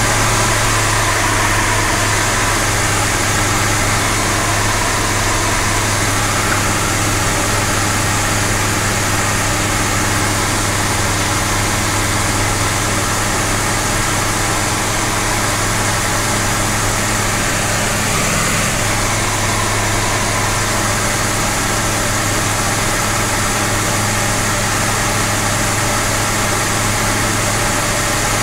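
Light aircraft's engine and propeller droning steadily, heard from inside the cockpit in flight.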